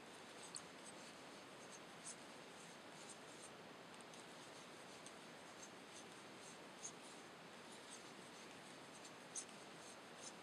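Faint, irregular small clicks of a metal crochet hook working cotton yarn, over a steady low hiss; a few clicks stand out, about two seconds in, near the middle and near the end.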